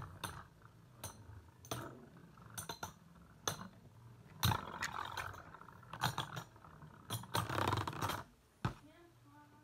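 Beyblade spinning tops battling in their stadium: scattered sharp clicks and knocks as they strike each other and the stadium wall, with two longer stretches of rattling clatter, about four and a half and seven and a half seconds in.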